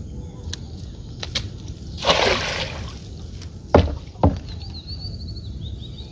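A cast net thrown from a small boat lands on the water with a splash about two seconds in. About a second and a half later come two dull knocks, close together.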